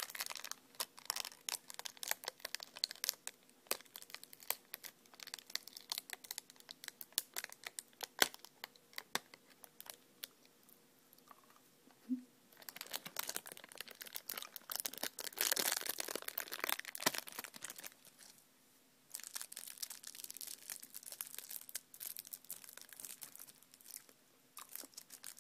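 Clear cellophane hard-candy wrapper crinkling and crackling as fingers unwrap the candy and flatten the wrapper. The crackles come in irregular runs, with a lull about ten seconds in and another shorter one near eighteen seconds.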